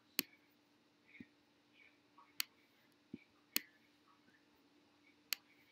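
Sharp computer clicks: four loud ones spaced irregularly a second or two apart, with a couple of fainter, duller clicks between them, over a faint steady hum.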